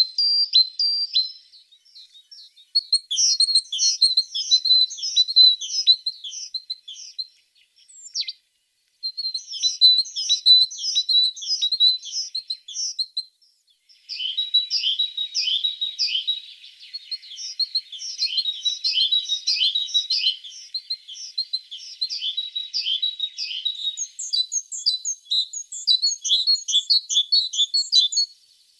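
A tit singing: phrases of fast, repeated high chirping notes, each a few seconds long, with short pauses between. A single down-sweeping note sounds about eight seconds in, and higher notes join the song near the end.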